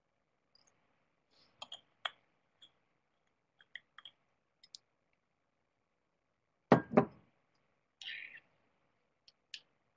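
Scattered small clicks and taps in a small room, with a louder double knock about seven seconds in and a short rustle a second later.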